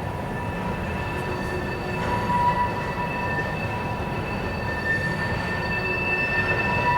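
Freight train of tank cars rolling past with a low rumble of wheels, while the wheels squeal steadily in several high held tones.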